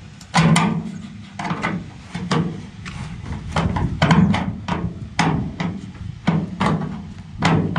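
Sheet-metal downspout knocking and rattling as a flat-head screwdriver is worked at a screw at its base. The knocks come irregularly, one to three a second, each sharp with a dull thud under it.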